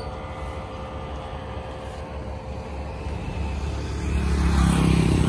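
Road traffic: a vehicle's engine running low and steady, growing louder from about three and a half seconds in as it draws near.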